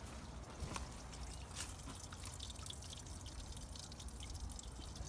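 Water dripping and trickling into a shallow pool inside a rock opening, a scatter of many small drips.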